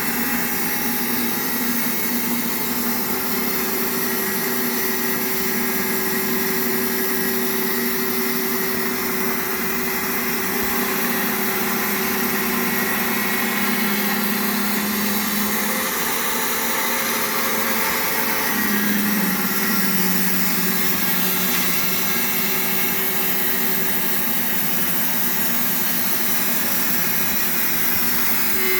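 Homemade electric band sawmill running: a steady motor whine with machine noise, dipping briefly in pitch about two-thirds of the way through.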